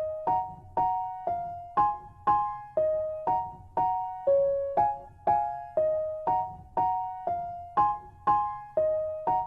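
Background music: a gentle piano or electric-piano melody, with notes and two-note chords struck evenly about twice a second, each fading before the next.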